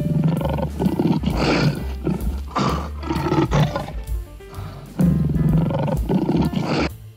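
Lion roaring several times in a row, each roar a second or more long, with a pause of about a second before the last one, over background music.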